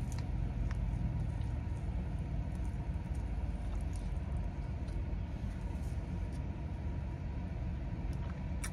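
Steady low rumble inside a car, its engine idling, with a few faint mouth clicks of someone chewing a wrap.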